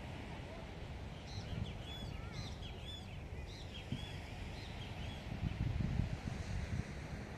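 Wind buffeting the microphone as a steady low rumble that swells about five to six and a half seconds in. A bird calls a quick run of short, arched chirps from about a second in to just under four seconds.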